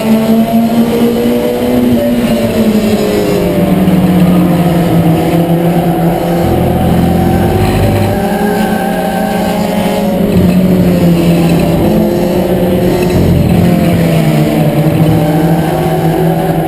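Ford Escort race car's four-cylinder engine at race pace, heard from inside the cockpit. The engine note dips and climbs as the car lifts for the corners and accelerates down the straights.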